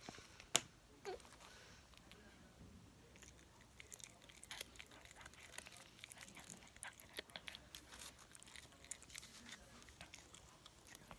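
A dog crunching a hard treat: a run of faint, irregular crunches, with one sharper crack about half a second in.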